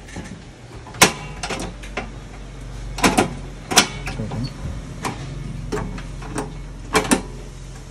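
Clicks and clacks from a portable butane cassette stove's gas canister compartment as its hinged cover is opened and shut and the canister is handled. There is a sharp click about a second in, more around three and four seconds, and a pair near seven seconds.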